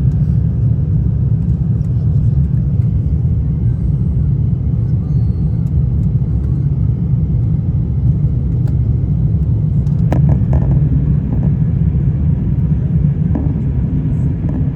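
Steady, loud low rumble of a jet airliner's engines, with a few faint clicks about ten seconds in.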